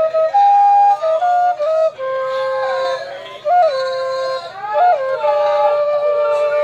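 Slow solo melody on a wind instrument: long held notes joined by short slides and turns.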